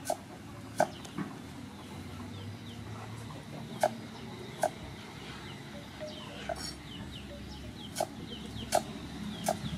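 Cleaver chopping carrot on a thick wooden chopping block: about ten sharp knocks at an uneven pace, some in quick pairs and one longer pause. Faint bird chirps sound in the background.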